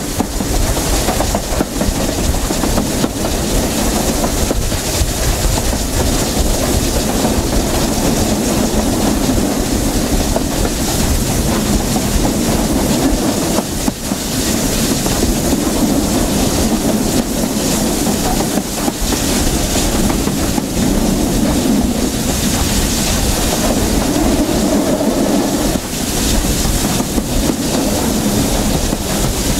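Steam-hauled train running steadily behind BR Standard Class 7 'Britannia' Pacific 70013, heard from the coach behind the locomotive: a continuous rumble from the carriage wheels, with a clickety-clack over the rail joints.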